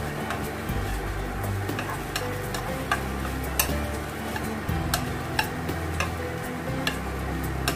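Brussels sprouts frying with bacon in a pan, sizzling, while a cooking utensil stirs them and knocks against the pan with repeated sharp clicks.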